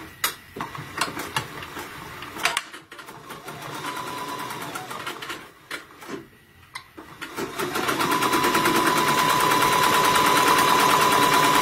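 Computerised embroidery machine stitching an applique tack-down line. After scattered clicks and a brief run of stitches, it settles about two-thirds of the way in into a steady, fast stitching rattle with a steady whine.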